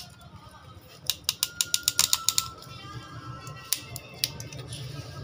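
Ratcheting piston ring compressor being tightened around a piston's rings: a quick run of ratchet clicks about a second in, then a few single clicks, with a faint metallic ring.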